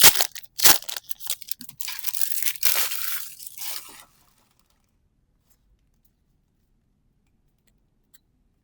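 Foil trading-card booster pack being torn open and crinkled, with a few sharp snaps followed by a couple of seconds of dense tearing and crackling that stops about four seconds in.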